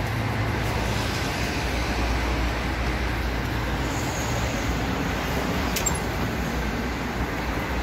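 Steady road traffic noise from passing cars, with one short click about three-quarters of the way through.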